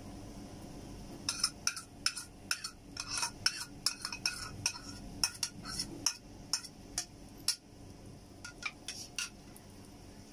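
Irregular clinks and scrapes of a utensil against a bowl and a frying pan as a yogurt-and-whipping-cream mixture is tipped and scraped into the pan. The clinks start about a second in and run on until near the end.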